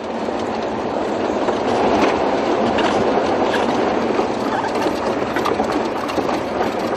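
A vehicle driving over rough ground: a steady rumbling, rattling noise with faint clicks running through it.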